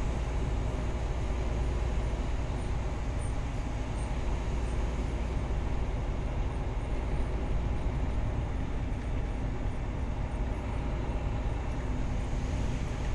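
Steady engine and road noise heard from inside a moving vehicle: a constant low rumble under an even hiss.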